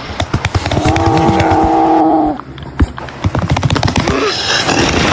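Harsh, distorted growling laced with crackle. One held growl at a steady pitch lasts about two seconds and breaks off abruptly. A sharp crack follows, then a rougher, noisier crackling growl.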